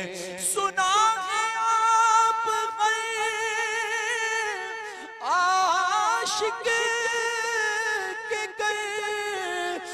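A man singing an Urdu naat, drawing out the words in long wavering held notes. About five seconds in there is a brief break, then a new phrase begins on a rising note.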